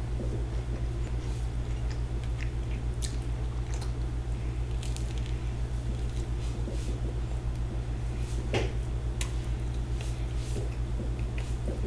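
A child biting into and chewing a sandwich on grainy bread, with scattered small mouth clicks and one sharper click about eight and a half seconds in, over a steady low hum.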